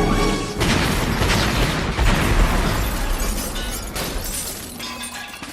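A loud explosion going off all at once, with a deep rumble and crackling, shattering debris that slowly dies away over several seconds.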